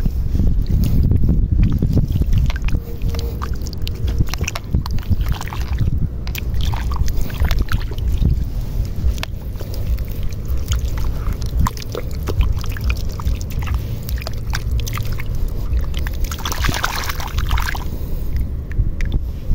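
Hands digging and sloshing through wet mud and shallow seawater on a tidal mudflat, with scattered small splashes and squelches, over a steady low wind rumble on the microphone.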